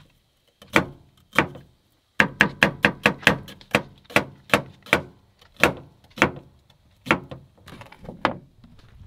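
Chef's knife chopping a red onion on a wooden cutting board set on a metal truck tailgate: sharp knocks, two slow strokes, then a quick run of about five or six a second, then slower, spaced strokes toward the end.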